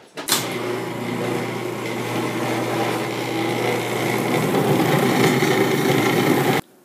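Cuisinart food processor motor running steadily, its blade cutting vegan butter into a gluten-free flour mixture until it turns crumbly. It starts with a click and cuts off suddenly near the end.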